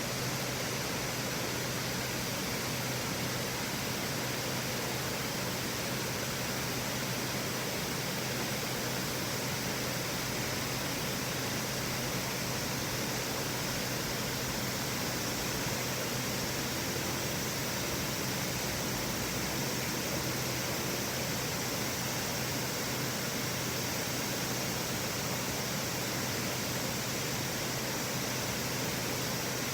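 River water rushing steadily, an even hiss that does not change.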